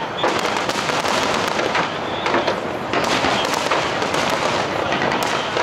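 Aerial fireworks shells bursting one after another, bangs overlapping with dense crackling of the stars.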